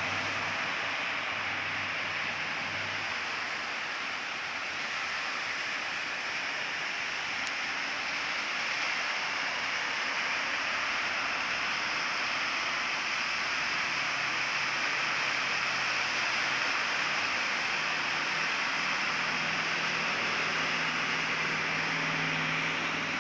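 Steady heavy rain falling, a continuous even hiss with no breaks. A faint low drone comes and goes underneath.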